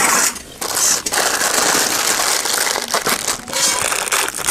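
Plastic Maggi noodle packet crinkling and rustling as it is torn open and crumpled by hand.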